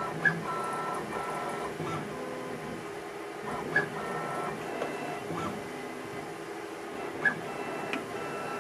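Tormach CNC mill's axis drives whining in short, stop-start pitched moves as a touch probe steps around test blocks during an automated inspection probing cycle. A short sharp chirp sounds three times, about three and a half seconds apart.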